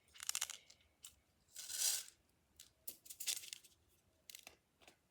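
A broken fidget game toy being handled: several short bursts of clicking and rattling, with a brief scraping rasp about two seconds in.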